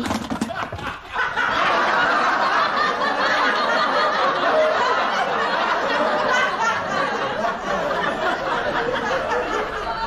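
Sitcom laugh track: a crowd of many people laughing together, swelling in after a short dip about a second in and carrying on steadily.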